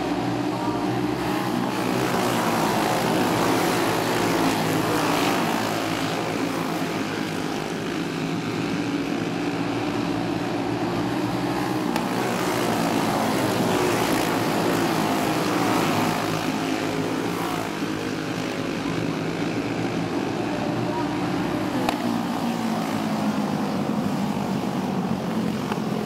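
A pack of racing karts with Briggs & Stratton Animal single-cylinder four-stroke engines running hard together. The engine pitch rises and falls in sweeps as the karts go through the turn and past.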